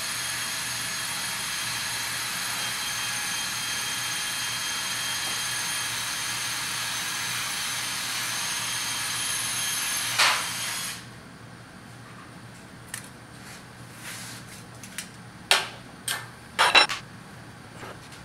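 Horizontal metal-cutting band saw running steadily with a whine. It stops with a clank about ten seconds in. After that come a few scattered light metal clinks and knocks.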